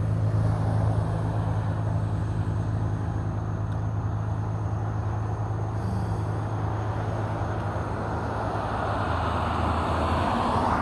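Steady vehicle noise: a low, even hum under a constant rushing noise.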